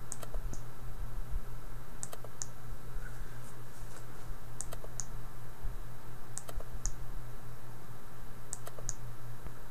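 Computer mouse button clicking in pairs, press and release, five times as sliders are grabbed and let go, over a steady low electrical hum.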